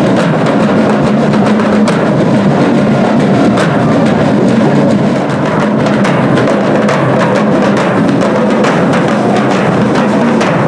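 Drums of a marching parade band playing, bass drum among them, with many sharp hits.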